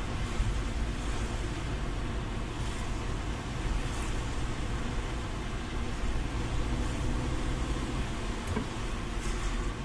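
Car interior noise while driving on a wet road: a steady low engine and road rumble with the hiss of tyres on wet tarmac.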